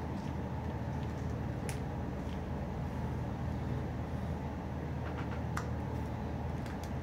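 Steady low background hum with a few faint clicks and taps as small plastic figure pieces are handled and pressed together.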